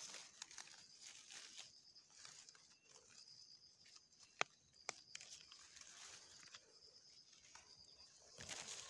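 Near silence among leafy undergrowth: faint rustling of leaves and stems as plants are brushed aside, with two sharp clicks about four and a half and five seconds in, and a faint high steady tone coming and going.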